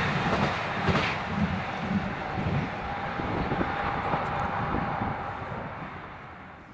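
A train running past on the line, its rumble and wheel noise fading steadily as it moves away. There is one sharp knock about a second in, and a thin steady tone holds for a couple of seconds midway.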